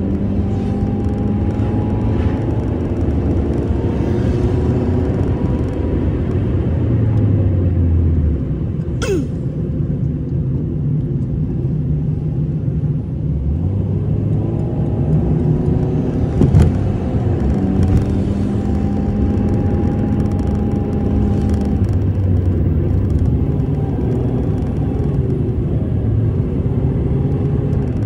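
Car engine and road noise heard from inside the cabin while driving, a steady rumble with the engine note rising and falling as the speed changes. Two brief sharp clicks, about nine and sixteen seconds in.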